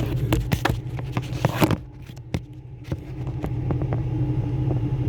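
A steady low engine hum runs under a series of sharp clicks and scrapes of hands handling parts, thickest in the first two seconds, then a few scattered ticks.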